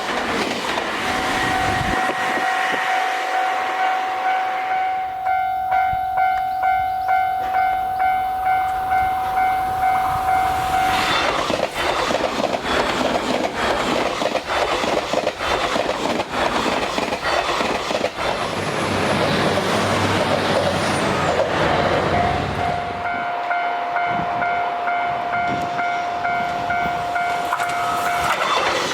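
Japanese level-crossing alarm ringing in a steady, rapidly repeating electronic ding. About 11 seconds in, a train passes over the crossing with wheels clattering on the rail joints, drowning out the bell. The bell rings on alone for the last several seconds after the train has passed.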